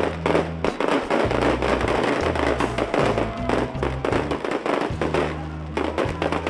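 Fireworks display: a rapid, continuous stream of shell bursts, bangs and crackling. Music with a deep bass line plays loudly underneath.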